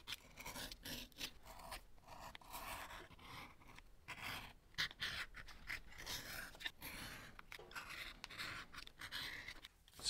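Edge beveler shaving the corners off the edges of vegetable-tanned leather: a run of short, faint scraping strokes.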